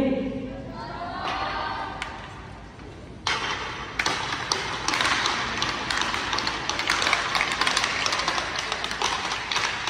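Hockey skates scraping and carving on the rink ice, with sharp clicks and taps of sticks and blades; it starts suddenly about three seconds in and then goes on as a dense scraping. A voice is heard at the very start.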